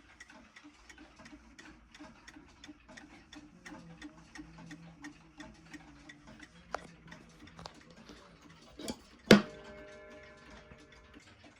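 1950s Seth Thomas Simsbury mantel clock ticking steadily. About nine seconds in comes one loud metallic strike, which rings on with several tones and dies away over a couple of seconds.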